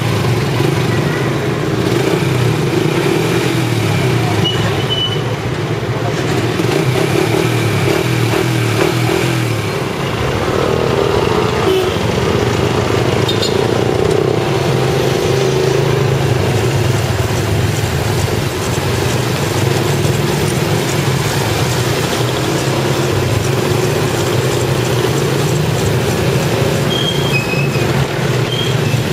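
Small motorcycle and scooter engines running in street traffic, a steady engine noise that changes character about ten seconds in.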